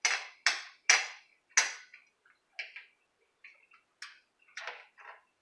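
Metal spoon and fork clinking and scraping against a ceramic breakfast plate: four sharp clinks in the first two seconds, then a few fainter clicks.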